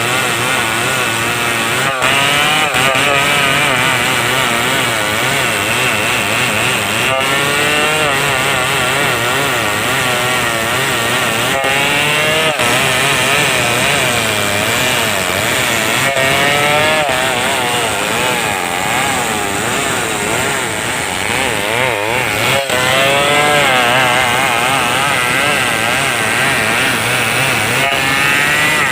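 Stihl 070 two-stroke chainsaw running continuously while cutting wood, its engine pitch wavering up and down as the load on the chain changes.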